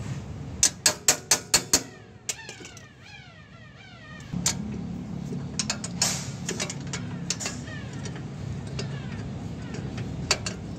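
Socket wrench clicking as a nut is worked loose, with a quick run of about six sharp clicks a second in. A run of quick falling squeaks follows, and about four seconds in a low steady hum starts under scattered lighter clicks.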